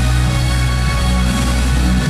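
Loud performance music with a heavy, sustained bass line and held tones.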